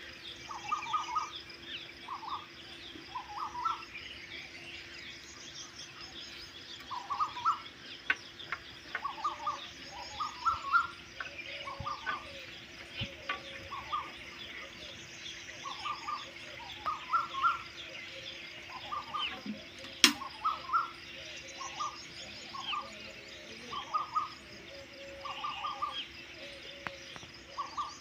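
Morning bird chorus: one bird repeats a short call of a few quick notes every second or two over a dense chatter of high chirps from many birds, with a faint steady hum underneath. One sharp click about two-thirds of the way through.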